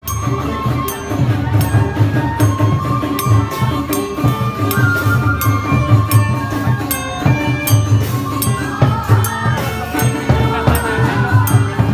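Chindon-ya street band playing: the chindon drum set's drums and small gong beat a steady rhythm of deep thumps and sharp metallic strikes under a held melody line.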